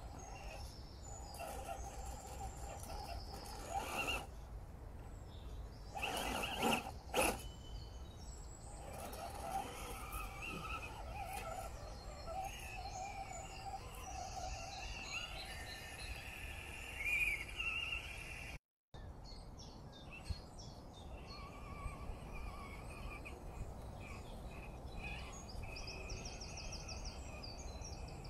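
Woodland birds chirping and singing over a low steady rumble, with a few louder sharp sounds about four and seven seconds in. The sound drops out for a moment about two-thirds of the way through.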